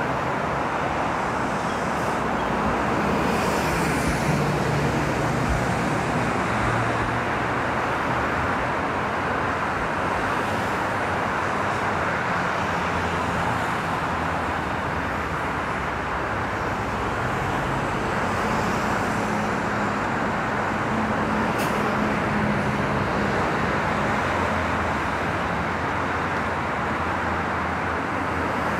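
Steady road-traffic noise, with the hum of passing vehicles coming and going.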